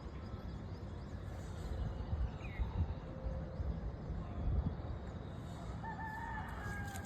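A rooster crowing once near the end: a single held call of about a second that drops slightly in pitch, over a steady low rumble.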